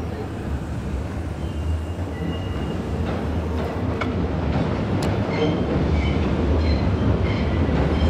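A Tobu Railway train crossing the steel railway bridge. A steady low rumble grows slowly louder, with short, high wheel squeals coming and going in the second half.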